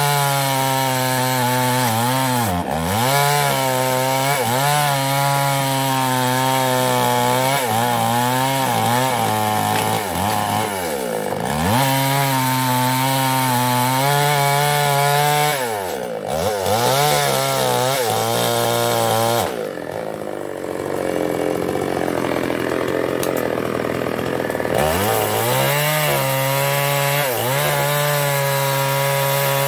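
Chinese-made two-stroke chainsaw running at high revs and cutting wood, its revs dipping sharply and recovering several times. For about five seconds past the middle it runs lower and rougher before picking up again.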